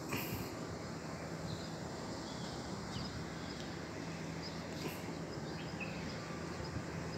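Faint bird chirps now and then over a steady background of outdoor noise with a low hum.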